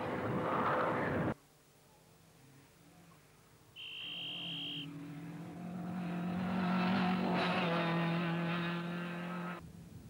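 Ford Escort rally car's 1600cc stage 3 engine running hard at high revs. The sound cuts off suddenly just over a second in. About four seconds in it returns with a short high-pitched tone, and the engine note swells as the car approaches, then cuts off near the end.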